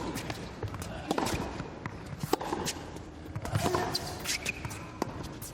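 Tennis ball being struck by racquets and bouncing on the court, a string of sharp irregular pops, over a low murmur of voices.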